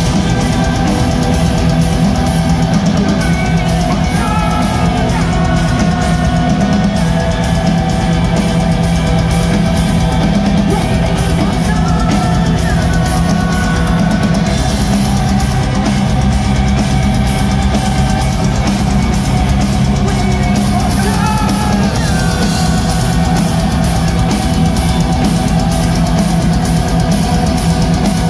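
A heavy metal band playing live, loud: distorted guitars and bass over dense, fast drumming, with the singer's voice coming through at times.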